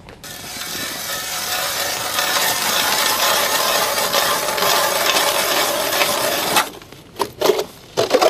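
Hand ice auger boring through pond ice: the blades cut with a steady, rough grinding scrape that stops abruptly about six and a half seconds in, followed by a few short knocks.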